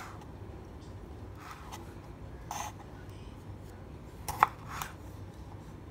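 Kitchen knife slicing small plum tomatoes on a wooden cutting board: a handful of short cuts and taps of the blade on the wood, the sharpest about four and a half seconds in, over a steady low hum.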